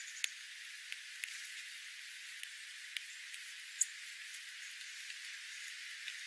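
Small songbirds (sparrows and juncos) foraging on seed-strewn gravel: scattered sharp clicks of pecking at seeds and grit, and one short, high chip call nearly four seconds in, over a steady hiss.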